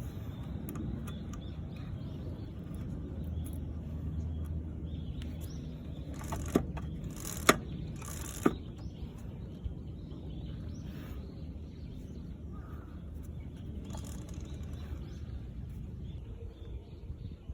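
A Honda CB125R's single-cylinder engine running with a low steady rumble, and three sharp clicks about a second apart in the middle.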